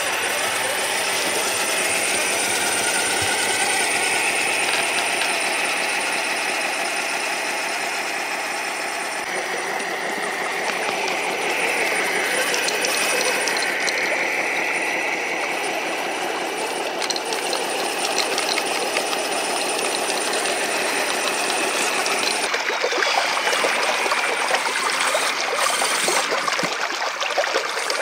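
Four brushed electric motors and two transmissions of a 1/14-scale RC tracked semi truck whining, the pitch rising and falling with the throttle, with a rapid clatter from the rubber tracks over a steady hiss. Near the end the low drone drops away and sharper clicks take over.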